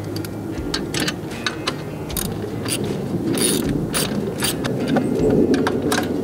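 Socket ratchet wrench clicking in quick runs of strokes as it turns a bolt holding a steel valve-mount bracket on a tractor loader.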